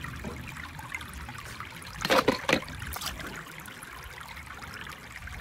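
Swimming-pool water splashing and trickling as a die-cast toy monster truck goes into the pool, with a sharper splash about two seconds in.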